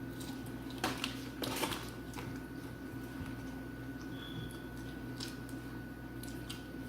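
Close-up eating sounds: a few short wet smacks and clicks of chewing over a steady low hum.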